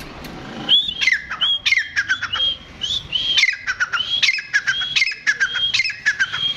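Grey francolin calling loudly: a rapid run of shrill, repeated notes, each held high and then dropping in pitch, starting about a second in.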